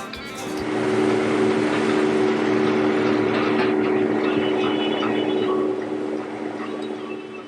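Combine harvester running steadily under load while harvesting corn. Its sound swells about a second in and eases off near the end.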